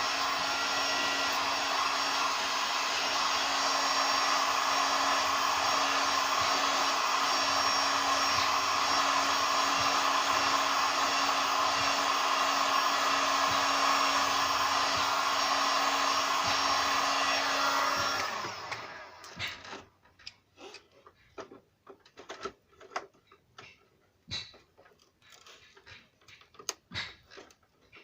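Hot-air gun blowing steadily with a motor hum, used for plastic welding on a headlight's broken mounting tabs. It is switched off about 18 seconds in and winds down. Scattered light clicks and taps follow.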